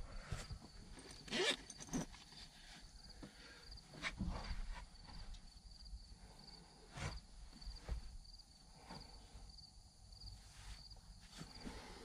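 An insect chirping in a steady high-pitched pulse, about two or three chirps a second, with a few scattered rustles and knocks over it.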